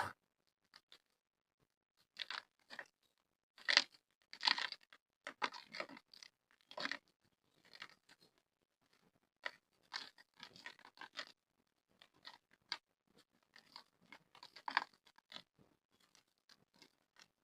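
Hard, gritty black mud being crumbled apart: irregular crunches and crackles of breaking dry lumps, some louder than others, with short pauses between them.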